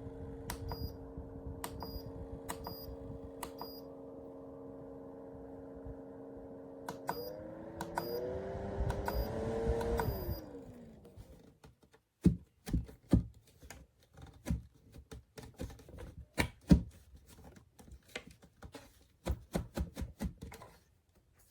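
Portable rechargeable fan's motor running with a steady hum, with clicks every second or so. About seven seconds in, the hum rises in pitch and grows louder, then about ten seconds in it winds down and stops. It is followed by a long run of sharp clicks and taps.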